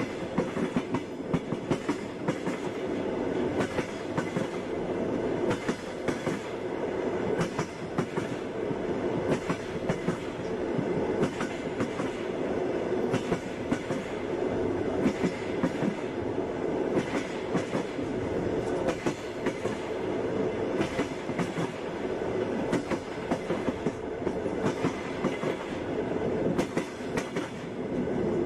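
Passenger train wheels clattering over the rails with a steady rolling rumble, sharp clicks coming irregularly throughout.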